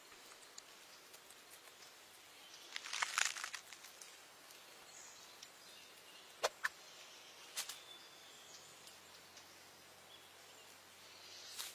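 Faint, quiet natural ambience with a brief rustling crackle about three seconds in, then a few sharp clicks around the middle and another rustle near the end.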